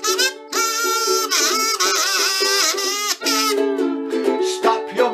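Instrumental break: a ukulele strumming chords under a buzzy melody played on a kazoo, with short pauses in the melody line.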